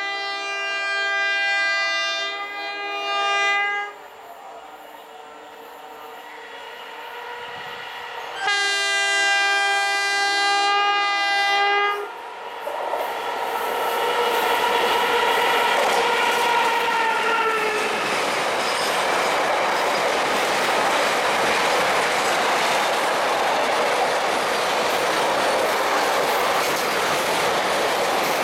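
Indian Railways WAG-5 electric locomotive sounding its horn in two long blasts, about four and three and a half seconds long, as it approaches at speed. It then passes with a tone that falls in pitch. After that, a long container freight train rolls by, its wheels rumbling and clattering over the rails.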